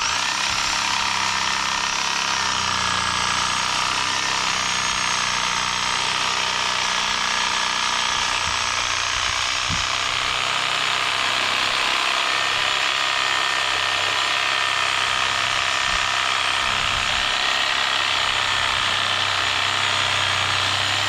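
Corded Sawzall reciprocating saw with a fine-tooth blade running steadily, cutting through the solid foam fill of a tractor-type tire.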